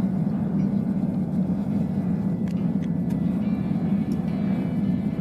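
Melting-furnace burner running with a steady, low-pitched rushing noise, with a few faint clicks about halfway through as aluminium cans are dropped into the crucible.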